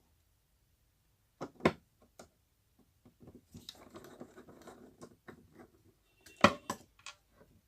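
Sharp metal clicks and a stretch of scraping as the wall fan motor's parts are handled and the two nuts holding its worn front bush are undone. A loud click comes about a second and a half in, scraping follows, and two louder clicks come near the end.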